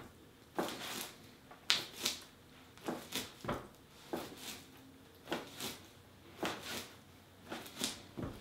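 Soft clay being wedged by hand on a wooden board: a steady rhythm of paired soft thumps and scuffs, about one pair a second, as the lump is pushed forward and rolled back.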